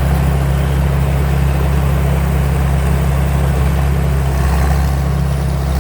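Combine harvester running steadily, its engine giving a constant low drone under an even mechanical noise.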